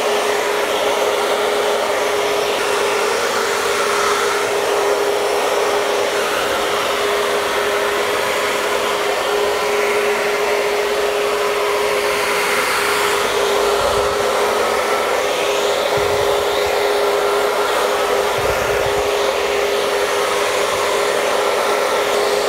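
Hand-held hair dryer fitted with a diffuser, running steadily: a continuous rush of air with a steady motor whine.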